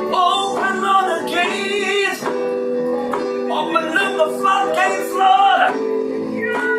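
A man singing over sustained chords played on an electronic keyboard.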